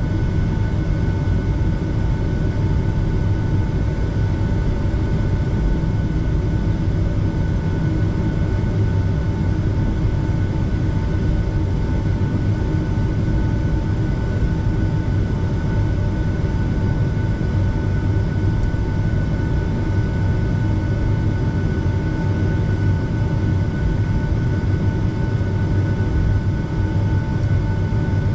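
Cabin noise inside a Boeing 757 taxiing in after landing: the jet engines near idle, a steady low rumble with a few steady whining tones on top.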